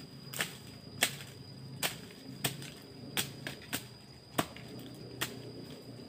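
Irregular sharp snaps and crackles of twigs and dry leaf litter, about nine of them, as a person steps and works through forest undergrowth. Under them runs a steady high-pitched insect note.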